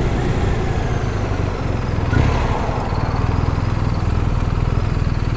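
Motorcycle engine ticking over at low revs with a steady, even pulse as the bike creeps up to a stop, swelling briefly about two seconds in.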